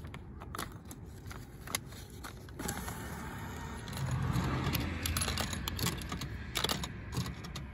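A 1000-yen note being handled and fed into a vending machine's bill slot: a run of small clicks and rustles. A louder rushing rumble swells about two and a half seconds in and eases off near the end.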